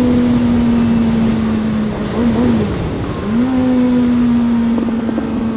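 Motorcycle engine running at a steady road speed under heavy wind noise; its pitch drops about two seconds in and climbs back a second later as the revs fall and rise again.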